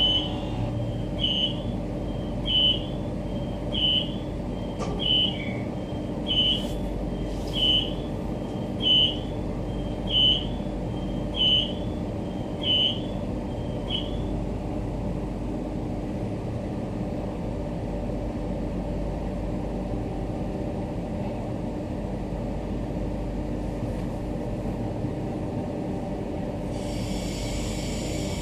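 Stationary Queensland Rail EMU electric train: an electronic door beeper sounds about a dozen times, one beep every second and a bit, over the steady hum of the train's equipment, and stops about halfway through. Near the end a hiss of air starts.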